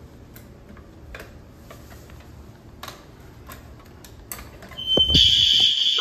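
Faint steps and handling noise at first. About five seconds in, a building fire alarm starts sounding, a loud, shrill, high-pitched tone that keeps going, set off by a pulled alarm station.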